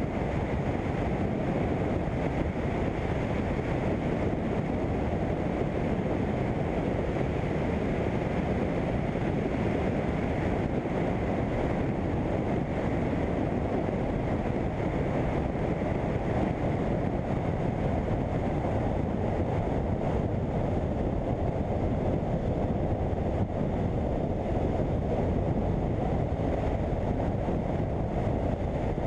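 Steady wind rush over the microphone of a motorcycle under way, with the BMW F800GS's parallel-twin engine running underneath, unbroken throughout.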